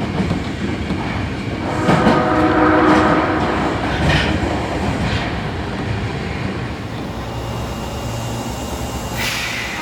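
Osaka Metro 22 series subway train's odd-sounding 'cow horn' blowing once for about a second and a half, about two seconds in, over steady running-train noise. A short hiss comes near the end.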